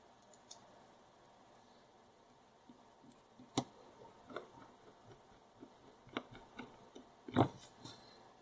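Scattered small clicks and taps from the plastic parts of a rocker light switch being handled during reassembly. The sharpest click comes about three and a half seconds in and the loudest near the end.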